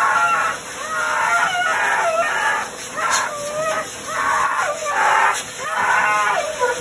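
Husky yowling and howling in a string of wavering calls that slide up and down in pitch, about one a second, while a pet grooming dryer blows on it with a steady whoosh.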